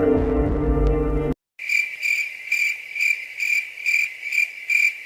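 Soft sustained music ends about a second in. After a short gap, crickets chirp in a steady high pulse a little over twice a second: the stock crickets sound effect.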